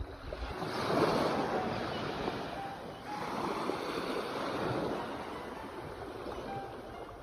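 Sea waves breaking and washing in, surging about a second in and again around four seconds before easing off.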